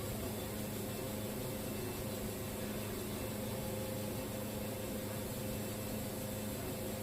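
Wood-Mizer portable sawmill running at a steady, even hum.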